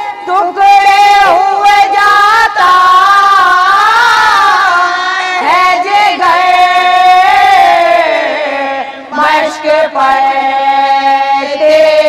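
A woman's solo voice chanting a marsiya, an Urdu elegy, in long drawn-out, wavering notes. Her pitch sinks lower about two-thirds of the way through.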